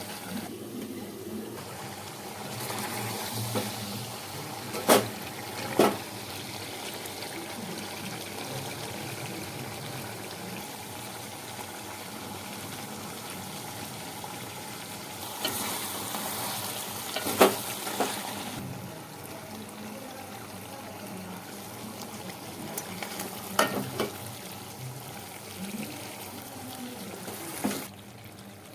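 Food cooking in a pan with a steady hiss. A few sharp knocks of a utensil against the pan come in pairs.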